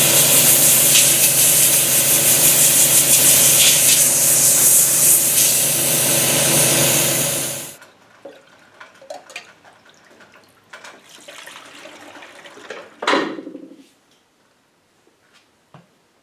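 A steady, loud hissing spray over a motor hum, cutting off suddenly about eight seconds in; then faint clinks of metal parts and a single knock.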